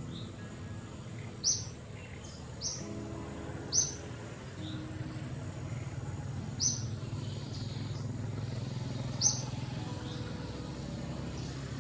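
A bird repeating a short, sharp, high chirp that drops quickly in pitch, about five times at uneven intervals of one to three seconds, over a steady low rumble of background noise.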